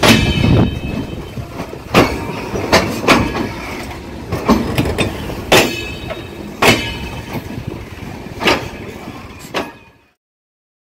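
Passenger train coaches rolling past, with a steady rumble and sharp, irregularly spaced clacks of wheels over rail joints, growing gradually fainter. The sound cuts off abruptly near the end.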